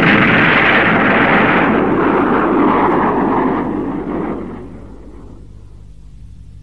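Special-effects explosion from a tokusatsu battle: a loud blast roar that rumbles on and fades away over about four seconds. It dies down to a faint low hum.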